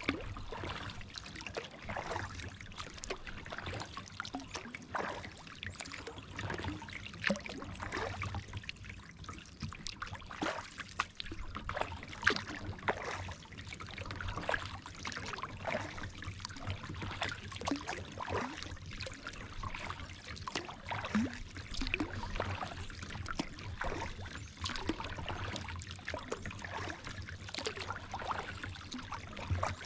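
Kayak paddle strokes in pond water: water splashing and dripping off the paddle blades in small irregular splashes, over a low steady rumble.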